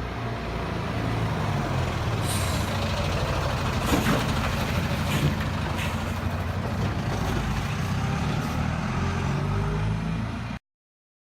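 A large engine running steadily, with a few short hisses and clicks over it, cutting off suddenly near the end.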